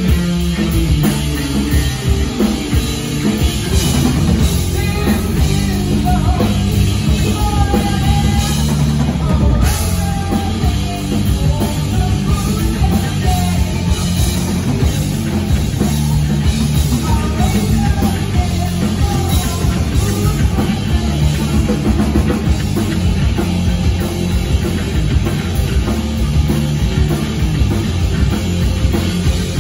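Live rock band playing loud: electric guitar, electric bass and drum kit, with a singer's voice over them through the middle stretch.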